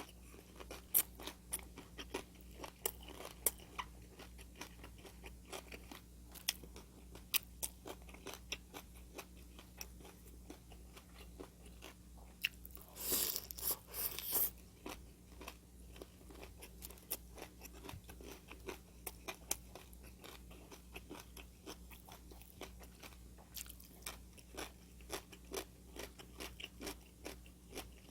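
A person chewing and biting crisp food, with many sharp little crunches and clicks and a louder, denser crunching stretch about halfway through.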